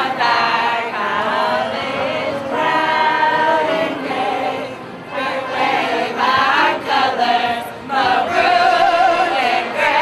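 A large mixed group of men's and women's voices singing together without accompaniment, in long held lines with brief breaks between them.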